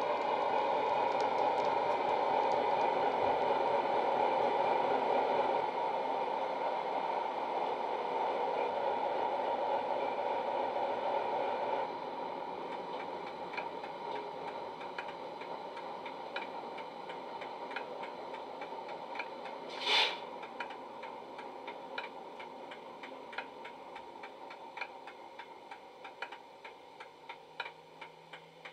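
Class 60 diesel locomotive sound from a Howes DCC sound file, played through a model's small EM1 and bass-enhanced speakers. The engine runs loudly as the model moves, drops to a quieter running sound about twelve seconds in as it stops, with regular ticking and one short hiss about twenty seconds in, and fades away near the end.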